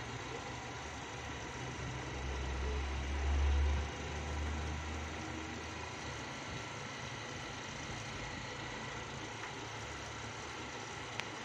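Jack E4S four-thread overlock machine running steadily while sewing a fabric edge. It gets louder and heavier about two seconds in, drops back near four seconds, and gives one short tick near the end.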